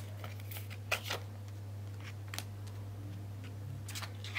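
Polymer banknotes and a cash envelope being handled, giving a few short crinkles and taps about a second in, again midway and near the end, over a steady low hum.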